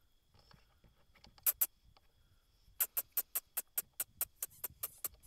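Two sharp clicks, then a quick, even run of about fifteen sharp clicks, some seven a second, growing fainter toward the end.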